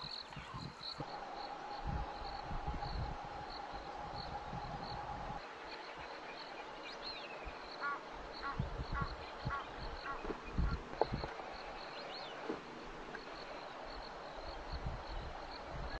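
Insect chirping in a steady pulse, about two chirps a second, over low rustling and thumps. A quick run of five or six short high squeaks comes about halfway through.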